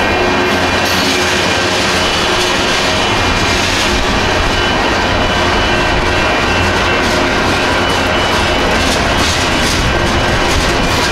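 Freight train tank cars rolling through a road crossing: a steady, loud rumble of steel wheels on rail, with clacks as the wheels pass over the joints and crossing rails, more of them near the end. A railroad crossing bell rings over it.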